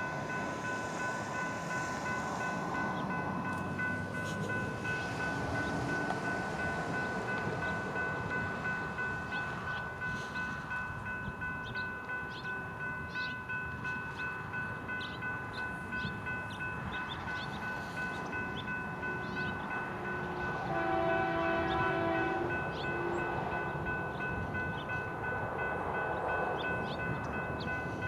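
Train rolling through a grade crossing while the crossing bell rings with steady tones and regular strikes. About 21 seconds in, a train horn sounds a short blast of a couple of seconds.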